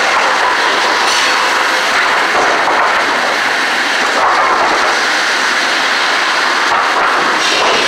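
Sawmill machinery running: a steady, loud din from the chain conveyors of the lumber sorting table as boards ride along them.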